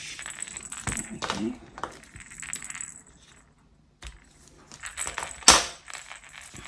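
Rattle insert inside a crocheted giraffe's head rattling in small bursts as the toy is handled, with a sharp click about five and a half seconds in.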